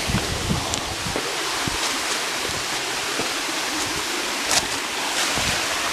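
Steady rush of a waterfall's running water, with a few brief knocks near the start and a sharp click about four and a half seconds in.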